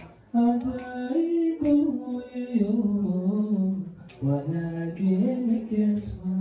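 A man singing solo into a microphone, with no instruments, holding long notes and sliding between pitches. The phrases break off briefly just after the start and again about four seconds in.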